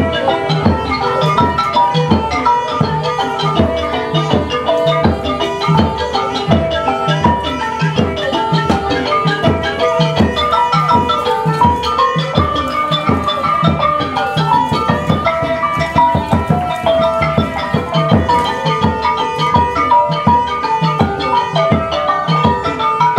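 Cambodian pinpeat ensemble music accompanying masked dance: a busy melody on tuned percussion over steady, regular drum beats.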